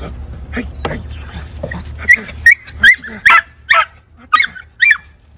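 Puppy yipping excitedly, about seven short high-pitched barks in quick succession, worked up by a rag lure pulled across a wooden board during prey-drive training. A few scuffs and rustles come before the yips.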